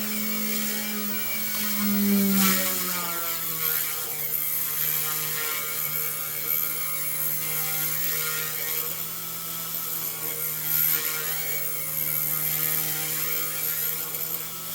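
Small electric RC helicopter, an OMP Hobby M1, with its motor and drivetrain running at a steady pitch that drops slightly about two seconds in and then holds. This is the unwanted noise the owner is trying to track down.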